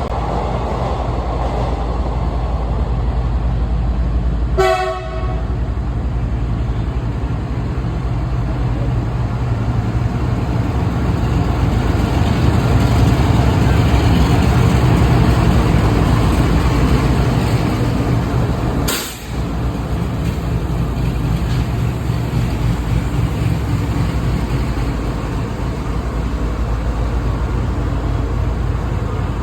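Train running with a steady, heavy rumble of wheels on rails, with a short horn toot about five seconds in and a sharp click later on.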